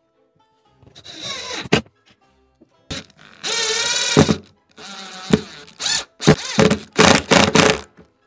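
Short bursts of power-tool and building work at woodwork, each starting and stopping abruptly. The longest, about halfway through, is a motor whining for under a second.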